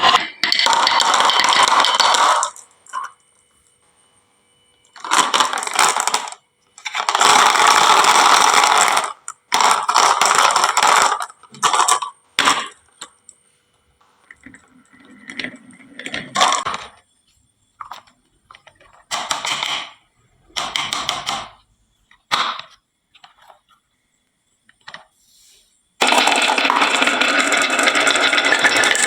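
Marbles rattling down a wooden marble-run slope and clattering into toy truck beds, in bursts of one to two seconds. Gaps of near silence and single clicks fall between the bursts, and a long burst starts suddenly near the end.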